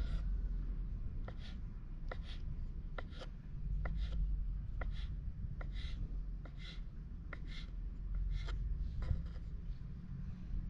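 Kitchen knife chopping boiled eggs on a wooden cutting board: irregular sharp taps of the blade against the board, about two a second.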